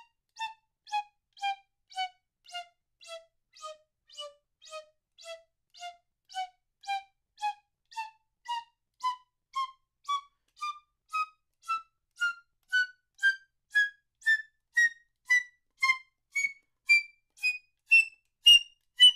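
Piccolo playing a slow chromatic line of short detached notes, about two a second, each started by a puff of air from the throat with no tongue (the 'gut puff' articulation exercise). The line dips a little lower, then climbs steadily higher and grows louder toward the end.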